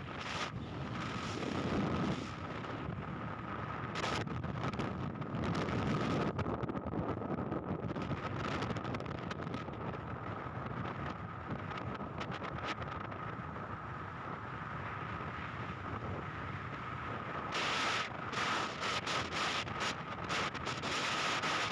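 Wind buffeting the microphone over the steady running noise of a moving vehicle, with a thin steady whine. The wind gusts become choppier and stronger near the end.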